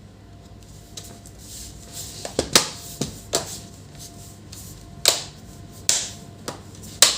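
Sharp clicks and knocks from an Acer laptop's case being handled and pressed together during reassembly. There is a cluster of them a couple of seconds in and a few more spaced out later.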